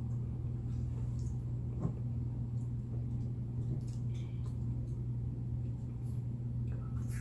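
A steady low hum with faint, scattered small clicks and mouth sounds of someone eating chicken wings.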